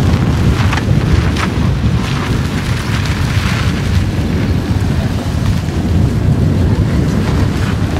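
Strong wind buffeting the microphone while travelling, a loud, steady, dense rumble with no clear engine note.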